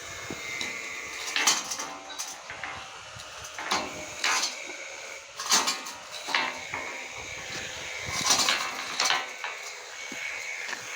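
Metal pieces clanking and knocking as they are handled and turned over one by one, about eight irregular metallic knocks with a short ring after each.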